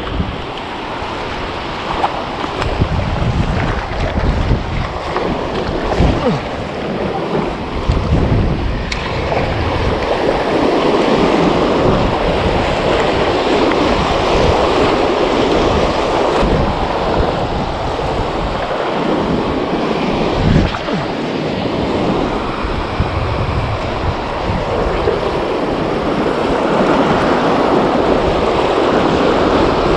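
Surf washing in around the wader's legs with waves breaking, and wind buffeting the microphone in rumbling gusts.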